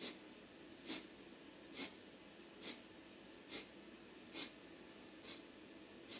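Kapalbhati breathing: short, forceful exhalations through the nose, faint and evenly spaced at about one a second, seven or eight in a row, each a quick puff of air.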